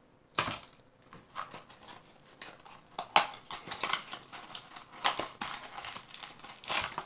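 Plastic packaging crinkling and rustling in irregular sharp crackles as it is handled and opened.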